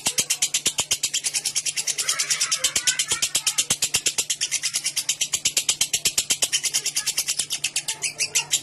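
Lovebird singing 'ngekek': a long, unbroken run of rapid, evenly spaced, high chattering notes.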